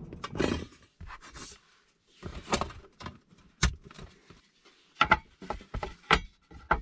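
Hands setting up a thin wire stand and a wooden cutting board: a string of separate light clicks, knocks and rustles with short quiet gaps between them.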